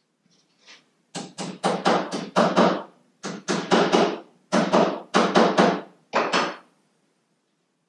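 A hammer tapping the lid down onto a metal can of Pettit Hi-Build varnish to seal it. There are about twenty quick, sharp taps in short runs with brief pauses, starting about a second in and ending about six and a half seconds in.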